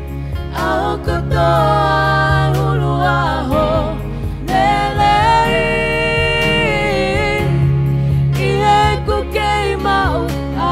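Women's voices singing a Tongan hymn into microphones, with sustained electronic keyboard chords underneath.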